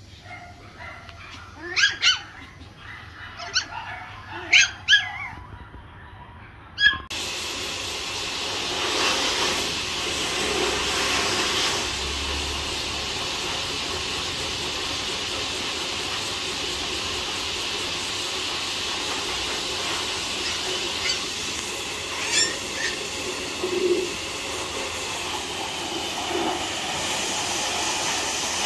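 Pomeranian puppies yapping in several short, high barks; about seven seconds in, the sound cuts to a steady hiss with a few faint high sounds later on.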